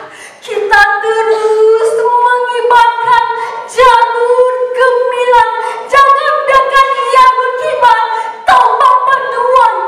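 A woman singing unaccompanied into a microphone: a slow melody of long held notes, beginning about half a second in.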